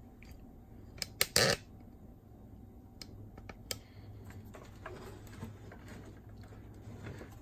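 Plastic case of a Panasonic RS-466S boombox being handled and eased apart: scattered sharp clicks and knocks, with a short scraping rattle about a second and a half in as the front panel shifts against the chassis.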